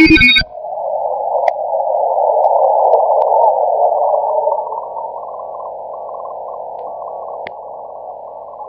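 Shortwave receiver static from an online SDR on the 40 m band, heard through a narrow CW filter about 1 kHz wide as a steady band of hiss. Louder broadcast audio cuts off abruptly about half a second in, and the hiss becomes a little quieter about halfway through.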